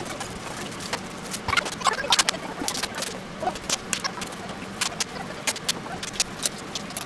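Ground meat being kneaded by gloved hands and then tossed from palm to palm to shape a hamburg steak patty: an irregular run of short, wet slaps and squelches.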